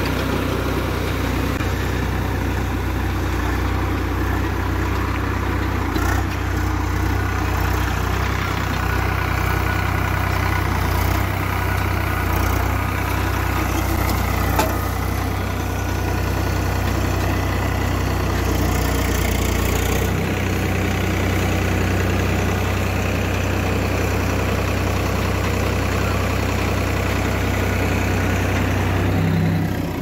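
Agri King 2055 tractor's diesel engine running steadily at about 1300 rpm, driving a PTO-powered round baler as it picks up straw.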